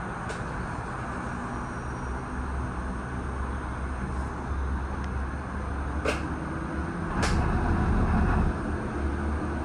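Disney Skyliner gondola cabin in motion along its cable: a steady rumble with a low hum. Two sharp clicks come about six and seven seconds in, and a louder rumble follows for a second or so.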